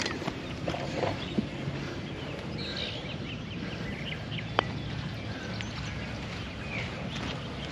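Birds chirping in short calls over a steady low background noise, with one sharp click a little past halfway.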